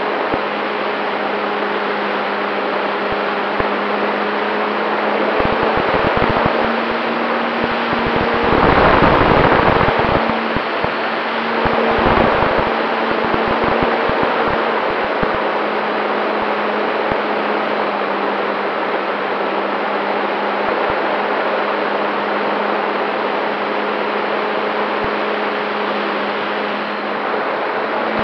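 RC model Cessna 188 heard from on board in flight: the motor and propeller give a steady hum under the rush of air across the microphone. The air rush buffets louder for about two seconds around eight seconds in, and briefly again around twelve seconds.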